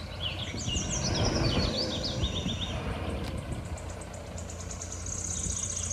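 Tanker truck's engine running with a low, steady rumble, while birds chirp over it with quick falling notes and, near the end, a fast high trill.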